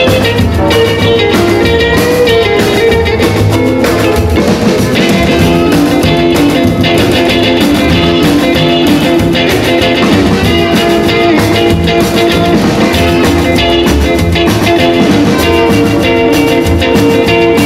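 Instrumental break in a 1950s rock and roll record: an electric guitar plays lead over bass and drums with a steady beat.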